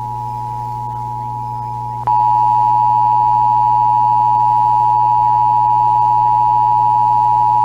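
Emergency Alert System attention signal: a steady two-tone electronic tone near 1 kHz. About two seconds in it jumps sharply louder with a click, and it holds level from there.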